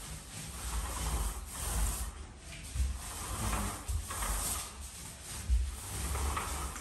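Paint rollers rubbing over a wall in repeated strokes, each pass swelling and fading, about once a second.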